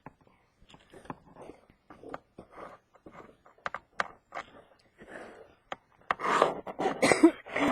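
Footsteps crunching in deep snow at a walking pace, about two steps a second. Near the end a louder, voice-like sound joins in.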